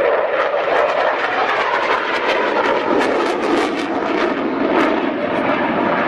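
Saab JAS 39 Gripen fighter's single jet engine, a steady, loud jet roar as the aircraft banks overhead.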